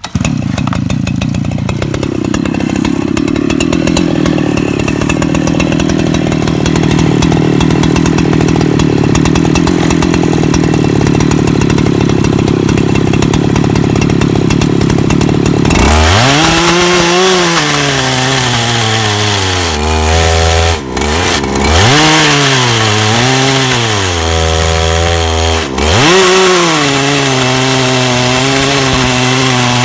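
Portable sawmill engine running loud and steady, then from about halfway its pitch drops and wavers up and down as the blade cuts through a log, sagging sharply twice near the end. The sags are typical of a beginner pushing too hard, which the instructor says slows the saw and spoils the plank's thickness.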